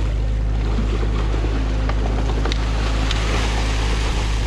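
New Holland mini excavator's diesel engine running steadily as its bucket tears sticks and mud out of a beaver dam, with water splashing and pouring off the load. A few sharp snaps of branches break through.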